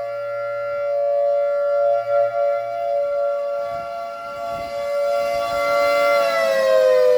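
Federal Signal 3T22 outdoor warning siren sounding a test: a loud, steady chord of several tones that swells and dips in loudness. About six seconds in it begins to wind down, the whole chord falling in pitch.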